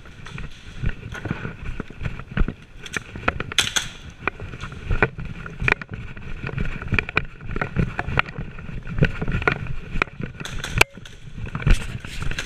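Quick, irregular footsteps on a concrete floor with gear rattling, mixed with scattered sharp clicks.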